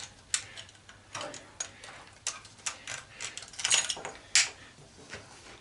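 Screwdriver working at a screw on an antenna rotator's metal housing: irregular small metal clicks, taps and scrapes, with one sharper click about four seconds in.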